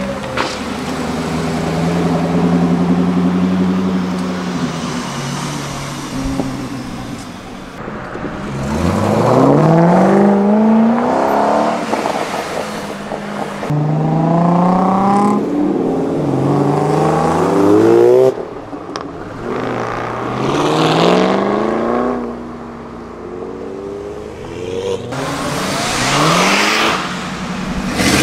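Muscle car engines, first running steadily, then accelerating hard several times with the engine pitch climbing on each pull. Several cars follow one another, with abrupt changes from one to the next.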